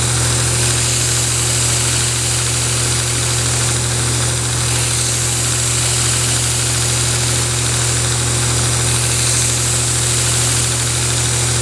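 Grizzly belt sander/grinder running with a steady hum while a dull steel double-bevel broadhead is ground against its worn 220-grit belt, the edge hissing on the abrasive as it is sharpened.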